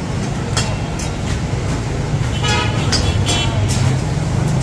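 Road traffic: a steady low engine rumble from passing vehicles, with a vehicle horn tooting briefly about two and a half seconds in. Scattered sharp clicks and clinks sound over it.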